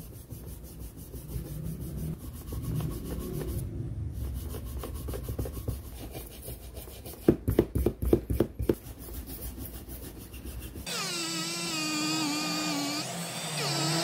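Small brass wire hand brush scrubbing the laminated steel core and field windings of an angle-grinder stator, with a quick run of about eight harder strokes around the middle. Near the end it gives way to the steady whine of a rotary tool spinning a brass wire wheel.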